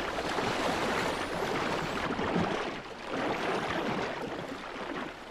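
Rushing, bubbling sea water that swells twice, dipping about three seconds in.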